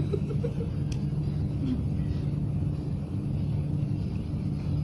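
Steady low mechanical hum and rumble.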